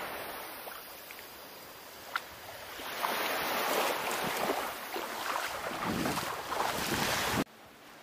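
Small waves washing over a sandy shoreline in shallow water, swelling and easing, with wind on the microphone; a single click about two seconds in, and the sound cuts off suddenly near the end.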